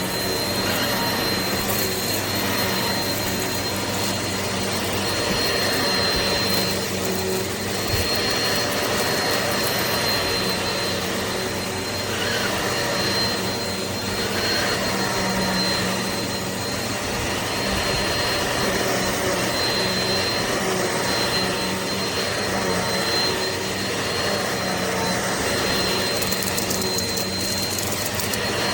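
Upright vacuum cleaner running steadily: an even motor and airflow noise with a thin high whine held throughout.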